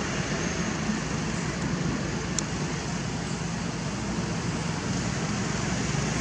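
Steady outdoor background noise with a low hum, and a single short tick about two and a half seconds in.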